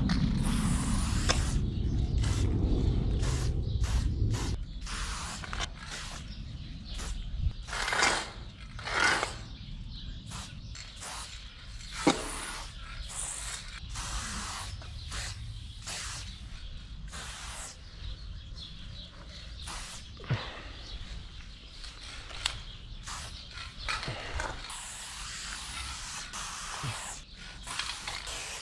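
Aerosol spray-paint can spraying in many short hissing bursts with gaps between, as outline strokes are sprayed onto a wall. A low rumble sits under the first four seconds, and a single sharp click sounds about twelve seconds in.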